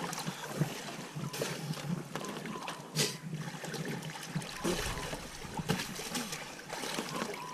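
Sea water splashing and trickling around a swimmer stroking up to a catamaran's stern steps, with small irregular splashes and a sharper one about three seconds in.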